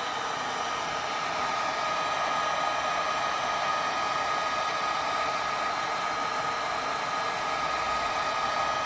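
Industrial heat gun running steadily, a continuous blowing hiss with a high whine, as it heats the phone's edges to soften the screen adhesive.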